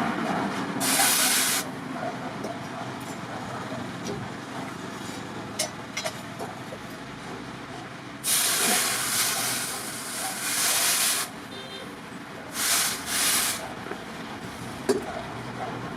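Several bursts of loud hissing, the longest about three seconds, over a steady background noise, with a few short sharp clicks between the bursts.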